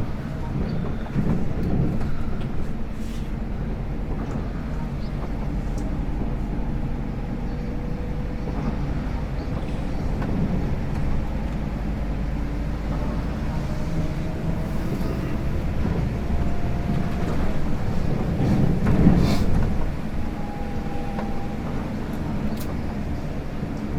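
Scania K410 IB multi-axle coach under way, heard from inside: the steady low rumble of its engine and road noise, with faint thin whines drifting slightly in pitch. About nineteen seconds in the noise briefly swells louder.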